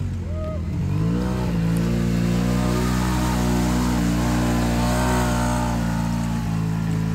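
Side-by-side UTV engine revving up about a second in, then running steadily under load as the vehicle drives through a shallow creek, with water splashing around its tyres.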